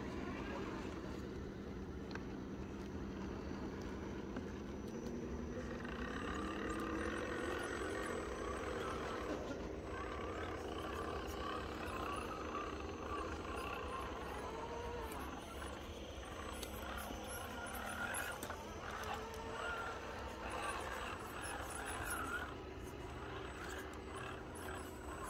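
An RC rock crawler's electric motor and gears whining at low speed; the pitch steps up about six seconds in and wavers later.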